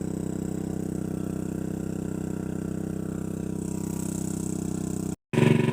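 Engine-driven water pump running steadily while it pumps water out of a pond. The sound cuts out for a moment about five seconds in and comes back louder.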